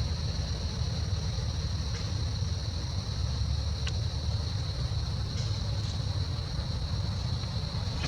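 Steady background noise: a low rumble under a constant high-pitched drone, with a few faint ticks.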